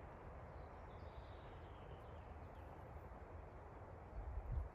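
Faint outdoor background: a steady low hiss, with a brief low rumble near the end.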